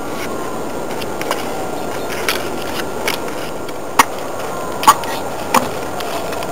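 Steady outdoor hiss with a handful of sharp clicks scattered through it and a faint falling whistle, twice.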